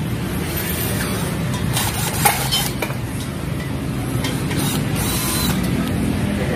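Steady low background rumble with a few short clicks and clinks of a cordless drill and white metal table frame parts being handled during assembly, the sharpest click about two seconds in.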